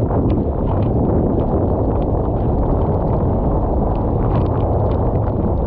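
Strong wind buffeting the microphone, a steady low rumble, with brief splashes of water breaking through now and then.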